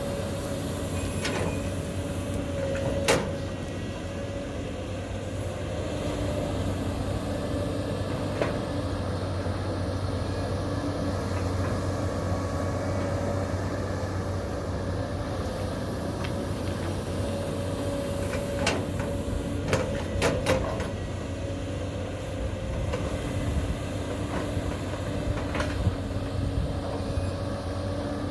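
Caterpillar 320D L long-arm excavator's diesel engine running steadily while it digs. Sharp knocks and clanks break in now and then: one about three seconds in, a quick cluster around twenty seconds in, and a few single ones elsewhere.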